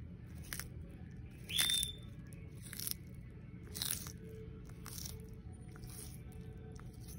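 Tortoise biting and crunching through crisp romaine lettuce, about one crunch a second. The loudest bite, near two seconds in, has a brief squeak.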